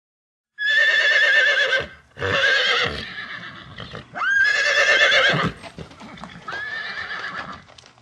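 A horse whinnying: four long, quavering neighs in a row, starting suddenly about half a second in.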